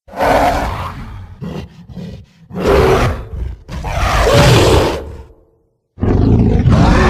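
A sequence of separate creature roar and growl sound effects with abrupt cuts: a roar, a few short grunts, two more roars, then another roar starting after a second of silence about six seconds in.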